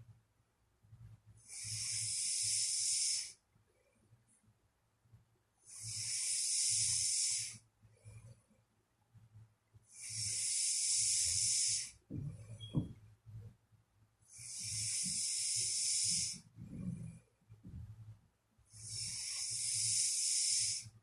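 Sleeping person breathing with an airy hiss, one drawn-out breath about every four and a half seconds, five in all. A brief low snort comes a little past the middle.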